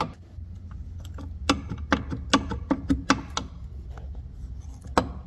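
Connecting rod of a torn-down Polaris Ranger 700 XP engine clacking against its crankshaft journal as it is rocked by hand, a string of sharp irregular clicks with a stronger one near the end. The clack comes from play that should not be there, the source of the engine's knock, from a worn rod bearing after running low on oil.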